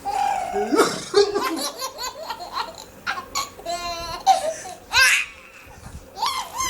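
A baby laughing hard in a run of short bursts, with a quick rippling stretch near the middle and a loud burst about five seconds in.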